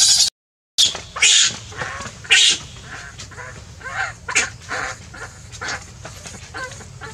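Baby macaque crying in distress: a few loud, shrill screams in the first two and a half seconds, then a run of shorter, quieter whimpering cries that fade off. The sound cuts out for about half a second near the start.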